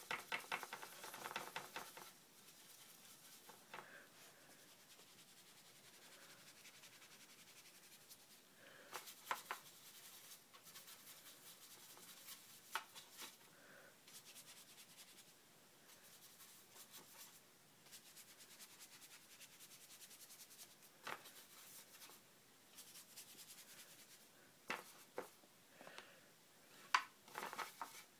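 Near silence with faint rubbing and scratching of a paintbrush working over wet watercolour paper, and a few light taps, several of them near the end.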